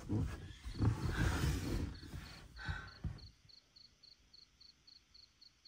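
Rustling and shuffling of a person shifting on a mattress and bedding as they settle down, dying away about three seconds in. Crickets chirp faintly and steadily throughout, about four chirps a second.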